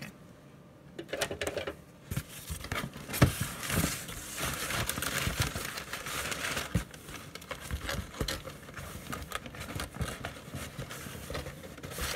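A cardboard shipping box being handled and opened by hand: rustling and scraping of cardboard with scattered light knocks and clicks as the box is shifted. It starts about a second in and is busiest in the middle.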